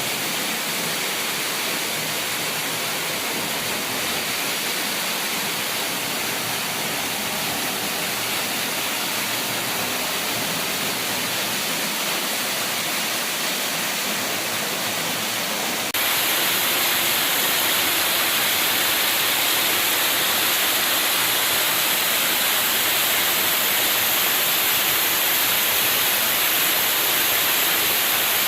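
Steady rushing of fast-flowing water, an even hiss with no pauses. Just past halfway it jumps suddenly louder and hissier.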